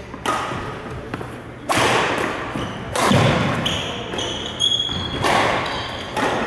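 Sharp knocks and thuds echoing in a large sports hall, four main ones spaced a second or more apart, with short high squeaks of court shoes on the floor in the middle.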